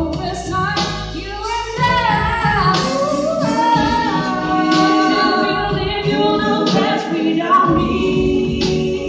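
A cappella vocal group of two women and two men singing a slow soul song in close harmony through microphones, over a low sung bass line, with a sharp percussive hit about every two seconds.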